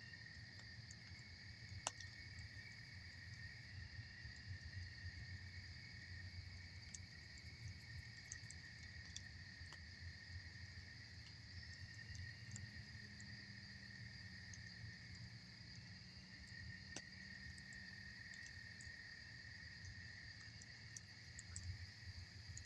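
Crickets chirring in a steady, high chorus, with scattered crackles and pops from a campfire; one sharp pop comes about two seconds in and another near the end of the third quarter. A faint low rumble runs underneath.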